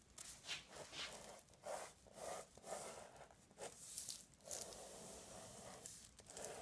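Pen scratching quickly over tracing paper laid on transfer paper, tracing a drawn design to transfer it. Faint short strokes come about two or three a second, evening out into a softer steady rub near the end.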